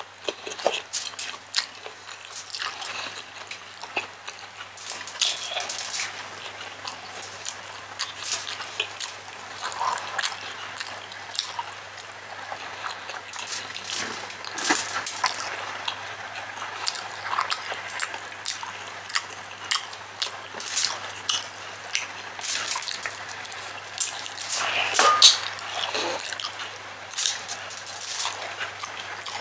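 Close-up eating sounds: chewing and wet lip-smacking on chicken liver and gizzard adobo with rice, eaten by hand, as irregular clicks and squelches with a louder flurry near the end. A faint low hum runs underneath.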